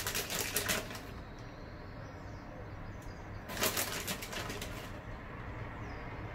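Two short bursts of quick crinkly rustling, one at the start and one about three and a half seconds in, from shredded mozzarella being handled and sprinkled over the top of a gratin.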